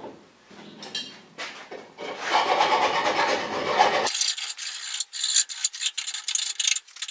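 Hand file rasping on the freshly cut end of a welded pipe, deburring the cut and taking down the weld line inside. Scraping at first, then quick repeated file strokes from about four seconds in.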